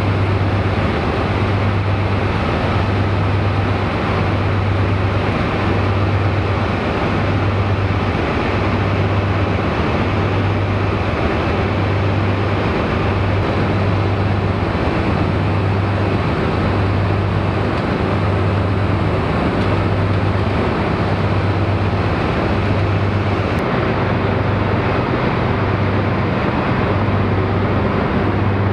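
Diesel engine of a Class 43 HST power car running at idle: a deep, steady drone with a rhythmic pulsing beat about once a second.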